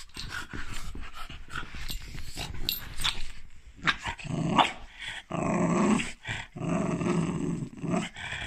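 French bulldog growling. Short rough noises come first, then three longer drawn-out grumbles in the second half, the middle one the loudest.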